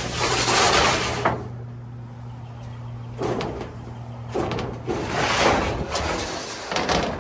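A sheet of used, rusty corrugated tin roofing scraping and sliding over the metal roof as it is pushed into place by hand, in several long scrapes with a few knocks. A steady low hum sounds behind it and stops a little past halfway.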